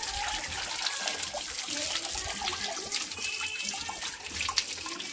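Spring water running from a village dhara spout and splashing, a steady flow with small scattered splashes.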